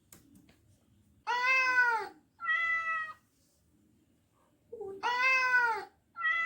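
Recorded domestic cat meowing four times, in two pairs: each a longer meow that rises and falls, then a shorter, flatter one. The last meow begins just before the end.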